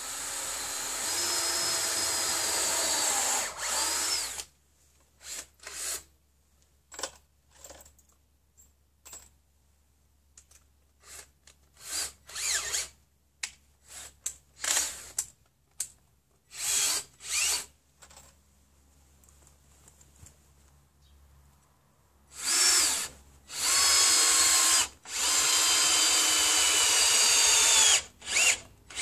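Cordless drill running with its bit in wooden roof battens: a long run of about three and a half seconds at the start, a string of short bursts, then two more long runs in the last third, while the battens are pre-drilled and screwed to the frame.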